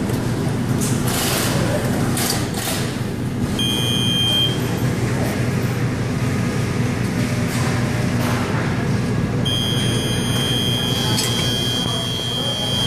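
A commercial doughnut deep fryer running, with a steady low machine hum and an even hiss of frying under it. A high electronic buzzer tone sounds briefly about four seconds in, then again steadily from about nine and a half seconds on.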